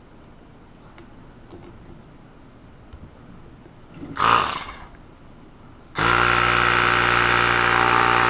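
A short burst of air hiss a little past four seconds in, then an air compressor switches on about six seconds in and runs steadily, inflating a 9x3.5-4 mobility scooter tire toward 40 psi.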